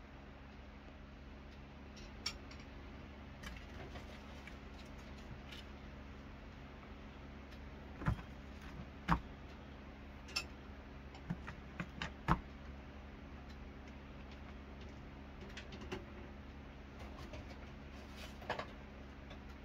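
Cat flap clicking and knocking in its frame as a kitten paws and pushes at it: scattered sharp clicks, a cluster of them about halfway through, over a steady low hum.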